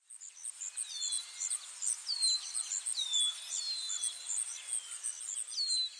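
Nature ambience of insects chirping in a steady high pulse, about four chirps a second, with birds calling in several short whistles that fall in pitch and then level off.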